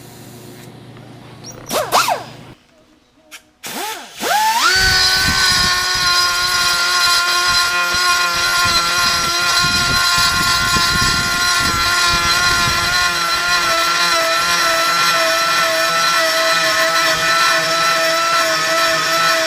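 Handheld electric power tool spinning up with a rising whine about four seconds in, then running at a steady high whine. Before it, a low steady hum and a brief loud sweeping whir about two seconds in.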